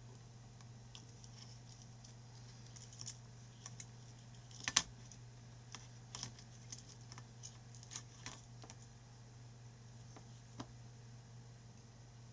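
Scattered light clicks and taps of hand tools against the motherboard and bench while a BIOS flash chip is being desoldered, with one sharper click about five seconds in, over a steady low hum.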